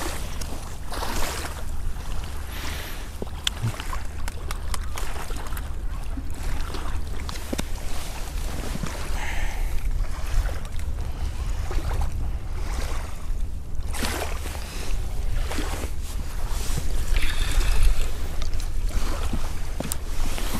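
Wind buffeting the microphone outdoors: a steady low rumble with a broad rushing noise that swells and fades every few seconds.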